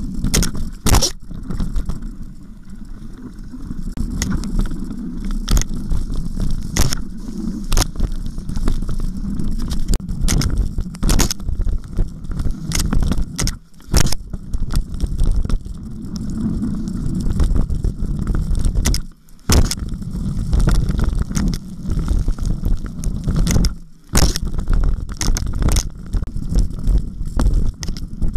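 Specialized Stumpjumper 6Fattie mountain bike ridden over rough, wet forest singletrack: a steady low rumble of tyres and wind, with frequent sharp clicks, rattles and knocks from the bike jolting over rocks and roots.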